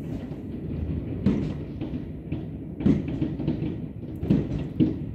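Fireworks going off all over a city at once: a continuous low rumble of many distant explosions, with sharper, nearer bangs about a second in, near three seconds, and twice past four seconds.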